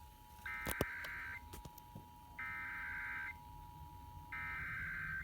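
Emergency Alert System SAME header: three bursts of digital data tones, each just under a second long and about a second apart, heard over FM radio, encoding the statewide Required Monthly Test. A sharp click sounds during the first burst.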